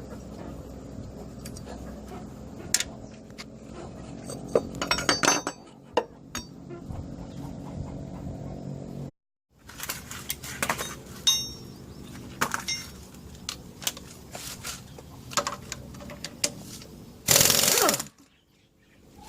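Metal hand tools clinking and knocking against engine parts during a water pump replacement, with sharp clicks and short metallic rings over a steady low hum. A sudden loud burst of noise lasting under a second comes near the end.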